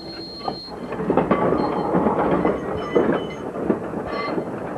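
1922 Peter Witt streetcar rolling along its tracks, its wheels clicking and knocking irregularly over the rail joints above a steady running rumble.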